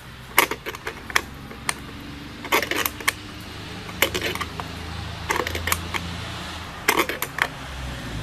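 Sharp metallic clicking in short irregular clusters as a wrench tightens the nut on a carriage bolt holding a barn door strap hinge, brought up snug.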